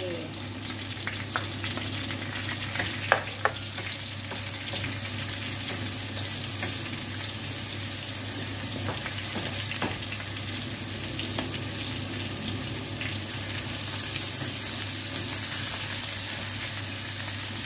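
Chicken pieces sizzling in oil in a frying pan with ginger, garlic and sliced red chili, stirred and scraped with a wooden spatula. Two sharp knocks about three seconds in.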